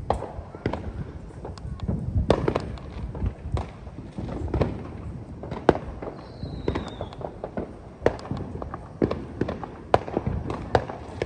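Consumer fireworks going off all around: many sharp bangs and crackles at irregular intervals, with a brief falling whistle about six seconds in.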